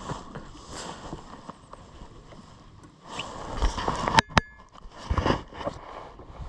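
Handling and rustling noises aboard a fishing boat, with two sharp knocks about four seconds in, the second ringing briefly.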